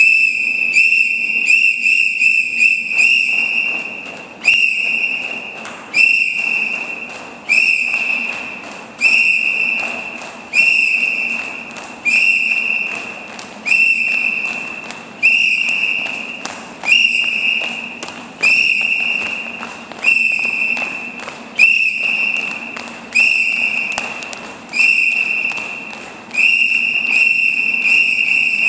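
Whistle blasts at one steady high pitch keep time for a drill team's marching. It starts with a quick run of short blasts about twice a second, then settles into longer blasts about every second and a half.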